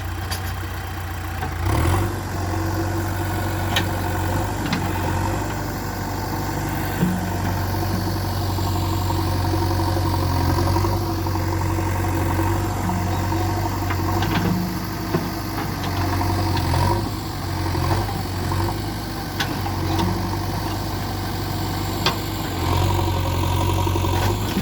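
JCB 3DX backhoe loader's diesel engine running steadily, its low hum swelling and easing several times as the machine works. A few short knocks and clicks sound over it.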